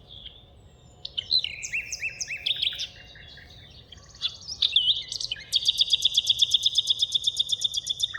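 Songbirds singing: assorted chirps and sliding whistles, then from about five and a half seconds a loud, fast trill of evenly repeated notes, about ten a second.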